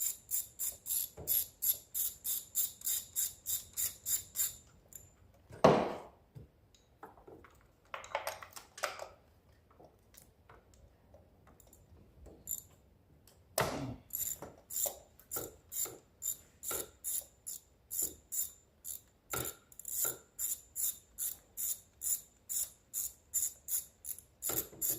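Ratchet wrench clicking in quick, even strokes as it turns a spark plug socket on the engine, with a couple of single knocks of tools or parts being handled. It clicks at about four strokes a second at first, pauses for a few seconds, then carries on at a slower pace.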